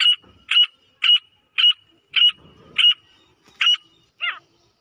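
Female grey francolin calling: a rapid series of short, sharp, high notes, about two a second. The last note near the end has a different, falling shape.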